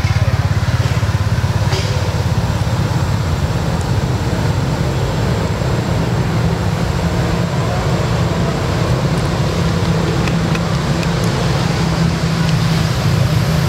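A steady low rumble of a motor vehicle engine running, unbroken and even in level.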